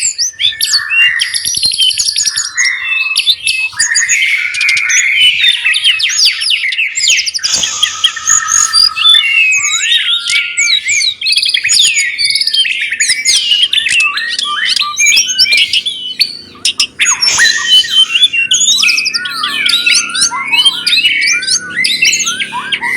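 Pet songbird singing a continuous, varied song of rapid chirps, trills and whistled phrases, used as masteran song for training other caged birds.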